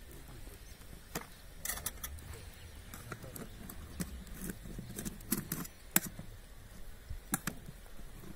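Scattered clicks and light knocks as fingers work at and break the dough seal around the lid of an aluminium cooking pot, over a low rumble.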